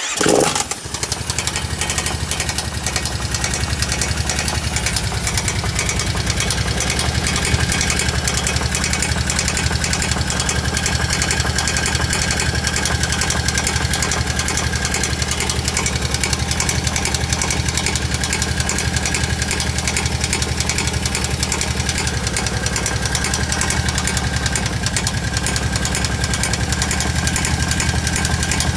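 Kawasaki KVF750 Brute Force ATV's V-twin engine starting right at the beginning, then idling steadily with a loud, rapid knocking. The owner places the knock at the rear cylinder and has ruled out the valve tappets.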